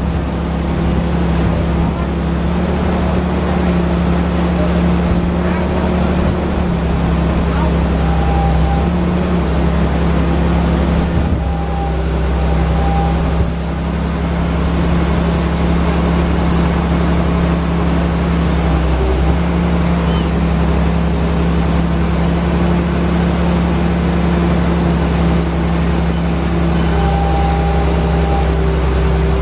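Wheeled excavator's diesel engine running steadily while its hydraulic arm works the bucket, with small shifts in engine pitch now and then.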